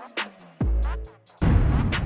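Electronic hip-hop style music with heavy, downward-sliding bass notes and sharp hi-hat ticks on a steady beat. A dense, louder bass-heavy passage comes in about one and a half seconds in.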